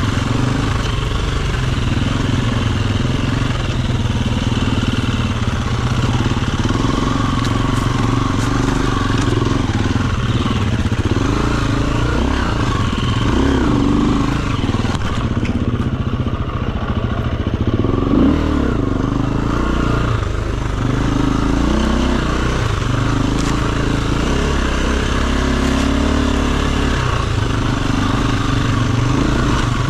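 Enduro dirt bike engine running under load, its revs rising and falling repeatedly through the whole stretch.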